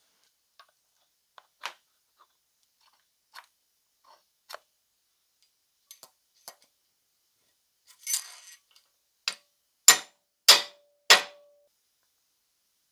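Light metallic clicks of parts being handled, a short scrape, then four sharp metal-on-metal hammer blows about half a second apart, driving a ball bearing onto a steel shaft set over vise jaws; one blow leaves a brief ring.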